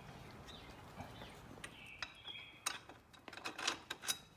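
Light metallic clinks and clicks of hand tools and parts being handled, a quick cluster of them in the last second and a half.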